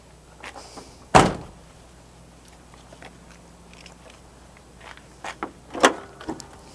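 Driver's door of a 2007 Ford E-Series cargo van shut once with a loud thunk about a second in, followed by scattered light taps and a sharper click near the end.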